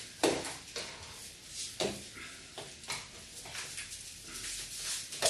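Light plastic knocks, taps and scraping as a roller blind's tube and end fitting are handled and pushed into their mounting bracket: a sharp tap about a quarter second in, then a few fainter ones.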